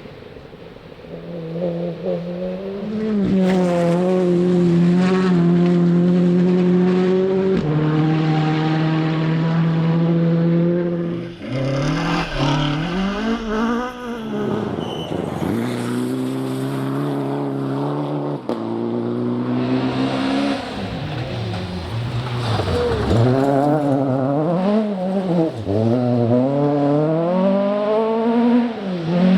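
Rally car engine at high revs. Its note is held steady for several seconds, then rises and falls sharply again and again with throttle and gear changes.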